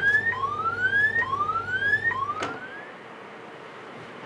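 Electronic warning tone on a London Underground 1996 Stock train: four rising whoops, each a little under a second long, the last one fading out. A knock about two and a half seconds in, as a low hum cuts off.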